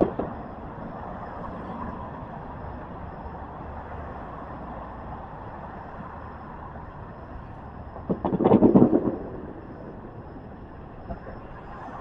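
Steady city street noise with passing traffic, and a loud burst of noise lasting about a second roughly eight seconds in.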